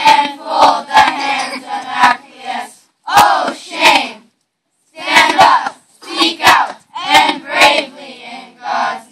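Group of children chanting loudly in unison in short forceful phrases with brief pauses between them, punctuated by sharp percussive hits.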